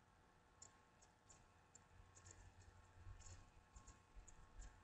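Near silence: faint room tone with a low hum and a scattering of faint, irregular high-pitched clicks.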